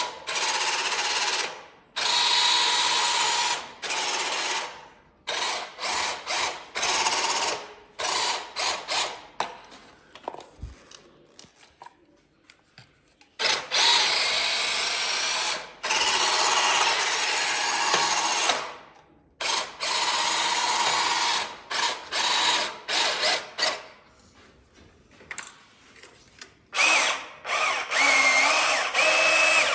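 Small geared electric motors of radio-controlled construction vehicles whirring in repeated bursts, starting and stopping every second or two, with a quieter stretch about ten to thirteen seconds in.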